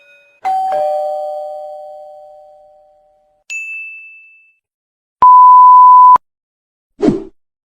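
A string of separate stock sound effects. First a two-note ding-dong chime, high then lower, ringing out over a couple of seconds. Then a single high ping, a flat one-second beep like a censor bleep, and a short thud near the end.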